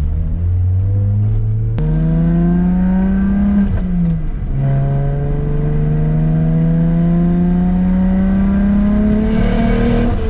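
BMW 335i's N54 twin-turbo inline-six accelerating hard under load. It pulls up through the revs from about two seconds in, drops back briefly at an upshift about four seconds in, climbs again and falls off near the end. The driver says it is breaking up, a misfire on cylinders 1 to 3 under load.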